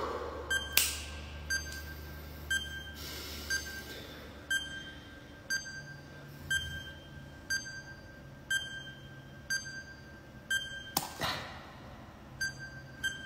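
Countdown clock ticking once a second, each tick a short sharp click with a brief high tone, over a low steady hum.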